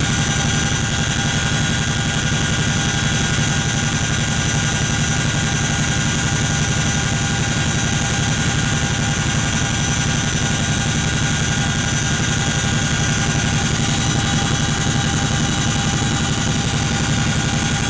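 Steady cabin noise of a CH-47 Chinook helicopter in flight: a loud engine and rotor drone with constant high whining tones over it.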